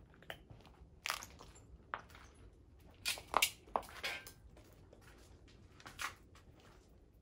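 Footsteps crunching over debris and broken plaster on a rubble-strewn floor: a run of irregular crunches, loudest about three to four seconds in.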